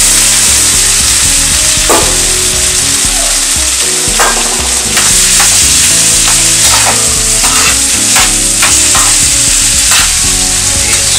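Diced carrots, potatoes and green pepper sizzling in hot oil and garlic in a frying pan. From about two seconds in, a metal spoon knocks and scrapes against the pan several times as the vegetables are stirred.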